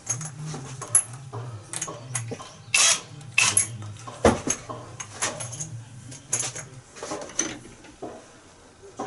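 Metal tools and fittings clinking, tapping and knocking irregularly as they are handled, over a low steady hum that stops about two-thirds of the way through.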